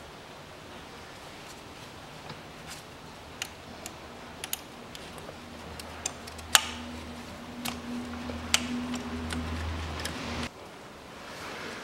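Scattered light clicks and taps from gloved hands handling hoses and fittings on a car engine. A low steady hum comes in about four seconds in and stops suddenly near the end.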